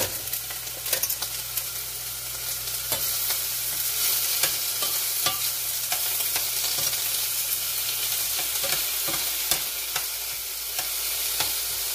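Vegetables, peppers among them, sizzling as they fry in a stainless steel pan, with a spatula scraping and clicking against the pan as they are stirred.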